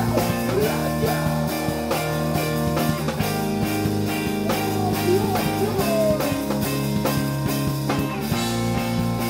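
Rock band playing: electric guitar and bass guitar holding chords over a drum kit keeping a steady beat.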